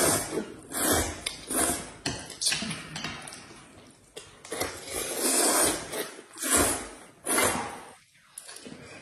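Two people slurping noodles, a run of quick slurps with a longer one lasting over a second about five seconds in.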